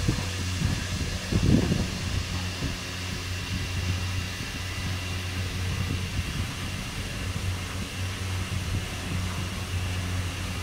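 Gondola lift machinery running steadily: a low mechanical hum with a faint high whine over it. A brief low rumble comes about a second and a half in.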